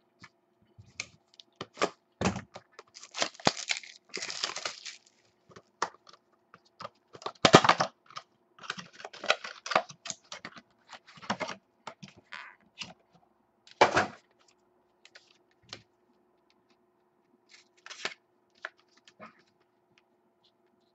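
Irregular clicks, knocks and rustling of trading-card packaging being handled and torn open, with a few louder tearing stretches and two sharp knocks.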